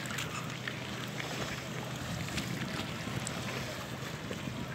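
Passenger ferry's engine running with a steady low hum, over a faint murmur of voices.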